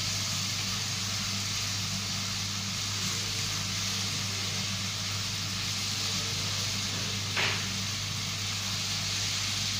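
Angulas frying in olive oil in a pan, a steady sizzle as they are turned with a wooden spatula, with a low steady hum underneath; a brief scrape of the spatula about seven seconds in.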